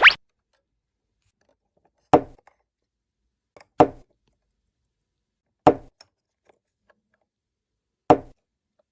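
A short rising pop right at the start, then four separate hard taps, roughly two seconds apart, of small plastic miniatures being set down.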